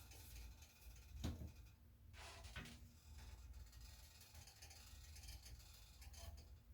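Near silence with a low hum, broken by a single click about a second in and a short scrape soon after.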